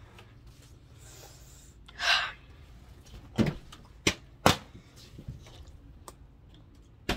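A brief rustling whoosh about two seconds in, then a few sharp knocks: three close together a little past the middle and one more at the very end, over a faint steady hum.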